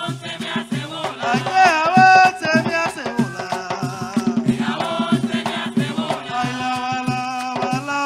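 Live bullerengue sentao music: singing voices over a steady beat of hand drums and percussion.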